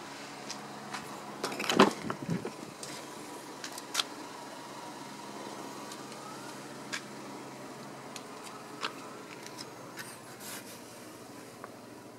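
Rear passenger door of a Chevrolet Spark being unlatched and swung open: a cluster of clicks and knocks about two seconds in, then scattered light clicks over a steady low hum.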